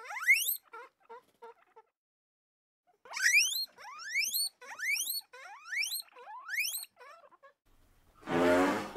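Guinea pig wheeking: high whistles that each rise sharply in pitch, one at the start and a run of about six between about three and seven seconds in, with a few short soft squeaks between them. Near the end a louder elephant call cuts in.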